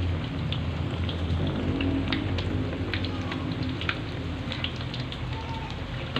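Corn fritters deep-frying in hot oil in a wok, a steady sizzle full of small crackles as they are turned with a metal slotted spatula.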